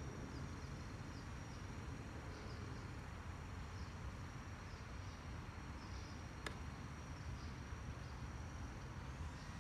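Faint outdoor ambience: a low rumble under a steady, thin high-pitched tone with occasional short chirps, and a single sharp click about six and a half seconds in.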